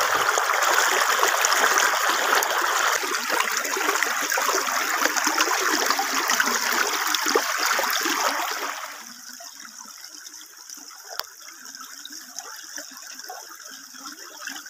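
Shallow river water splashing and rushing around a turning bamboo paddle wheel, loud and close at first. A little past halfway it falls sharply to a quieter trickle of flowing water.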